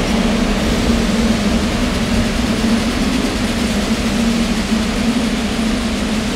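R44 subway train standing at the platform, its onboard equipment giving a steady, unchanging low hum.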